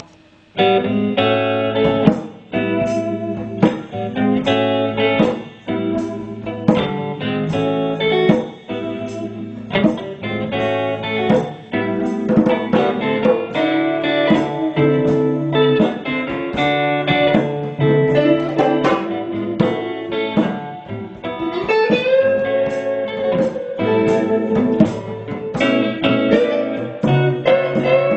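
Two electric guitars and a hand drum (djembe) jamming together, the guitars playing chords and single notes over a steady hand-drum beat. A little after twenty seconds one guitar note bends up and back down.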